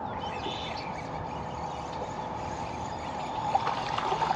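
Water sloshing and splashing at a bass boat's bow as a hooked fish is reeled in, growing louder toward the end, over a faint steady hum.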